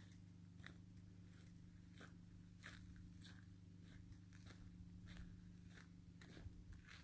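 Near silence: a faint steady low hum with scattered faint clicks, a little under two a second.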